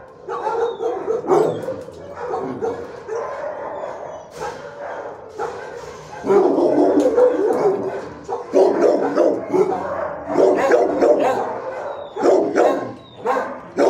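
Dogs barking in a shelter kennel block, with many overlapping barks and yips that grow louder about six seconds in.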